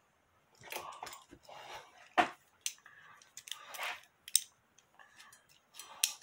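Irregular handling noise: clicks, rattles and scrapes of hand tools being rummaged through, in short bursts with pauses between them.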